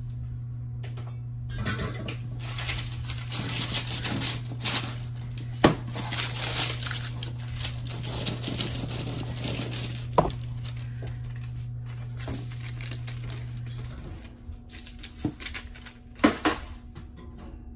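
Ribeye steaks sizzling as they sear in a hot pan, with a few sharp knocks. A steady low hum runs underneath, and it stops along with most of the sizzling about fourteen seconds in.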